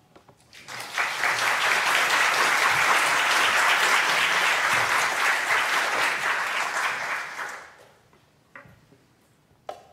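Audience applauding: the clapping starts about a second in, holds steady, and dies away after about seven seconds. A single click follows near the end.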